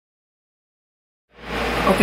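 Dead silence for the first second or so, then a steady low hum of room tone cuts in, and a woman says "Okay" near the end.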